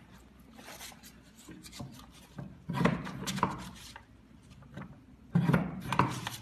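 A sheet of brown paper rustling and scraping as it is handled and slid between the steel plates of a lever-operated RCT sample cutter, with louder bursts about three and five and a half seconds in.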